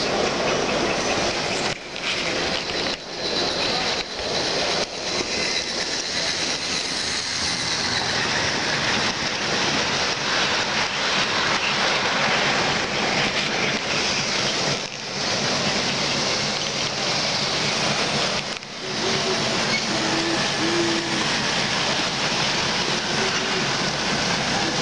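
Model passenger train running along a layout track: the steady rolling noise of its wheels on the rails and its motor's hum.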